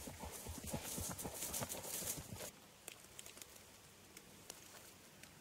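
Hoofbeats of a horse running over grassy ground, a quick run of dull thuds with a hiss of grass and wind over them, cutting off suddenly about two and a half seconds in and leaving only faint ticks.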